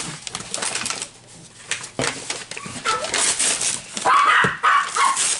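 Dog barking in the background, a few barks bunched together near the end, with paper and plastic packaging rustling.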